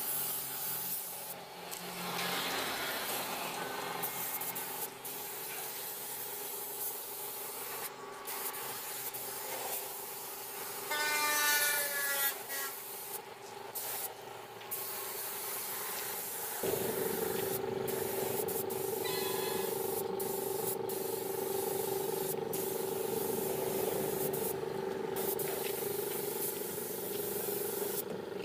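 Compressed-air paint spray gun hissing in spells, broken by short pauses as the trigger is released, over a steady machine hum that steps up abruptly about two-thirds of the way through. A brief pitched call near the middle is the loudest sound.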